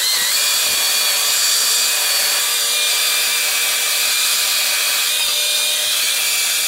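Electric drill spinning a brass wire brush against an aluminium engine block, scrubbing off dirt and deposits. It starts suddenly and runs at one steady speed: a high whine over a scratchy hiss.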